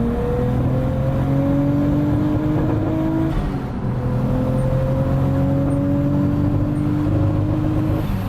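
Turbocharged Nissan RB25 straight-six engine accelerating hard under load in two rising pulls, with an upshift about three seconds in and another near the end. The engine has worn coil packs that make it break up above about 5,000 rpm.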